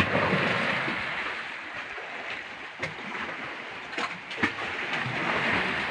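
Sea water washing and splashing against a fishing boat's hull: a steady rushing hiss that swells and eases, with a few sharp knocks near the middle.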